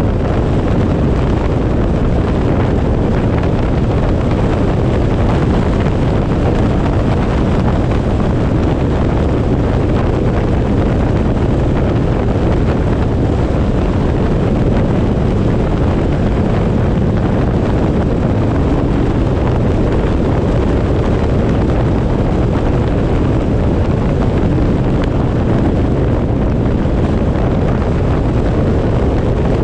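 Steady wind buffeting the microphone of a camera on a moving vehicle at road speed, mixed with a low rumble of road and engine noise.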